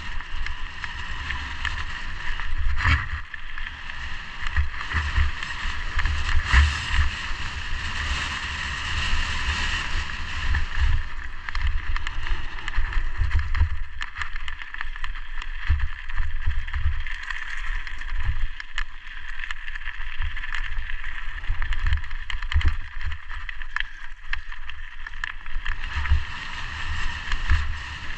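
Mountain bike descending a gravel trail: wind buffets the helmet camera's microphone while the tyres rumble and crunch over loose stones, with frequent clicks and knocks as the bike rattles over bumps.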